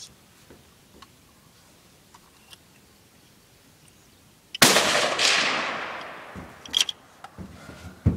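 A single rifle shot about halfway through, with a long rolling echo that fades over about two seconds. A short sharp click follows a couple of seconds later.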